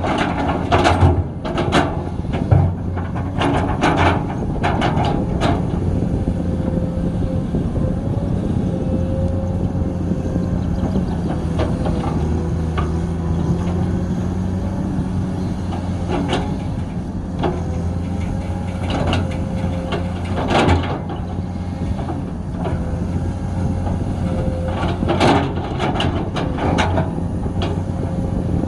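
Komatsu 210 excavator's diesel engine running steadily, with bursts of metal clanks and knocks while digging, several near the start and more again later on.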